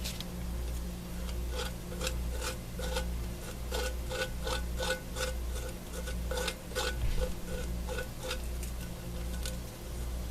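Light, rapid clicking and tapping of small hard craft tools being handled and knocked together, roughly two clicks a second with a slight ring, over a low steady hum.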